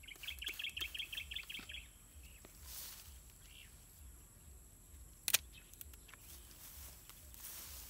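A bird chirping, a quick run of about ten high chirps in the first two seconds. About five seconds in, a single sharp snip of hand pruning shears closing on the dragon fruit's stem.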